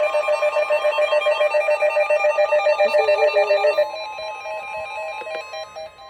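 Bell-like electronic tones trilling rapidly, about nine pulses a second. About two-thirds of the way through they drop to a quieter, slower run of repeated single notes.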